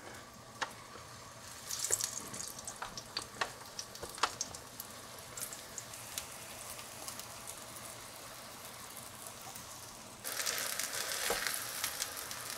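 Eggplant slices frying in hot oil in a skillet: a steady sizzle with scattered sharp clicks and pops. The sizzle becomes suddenly louder about ten seconds in.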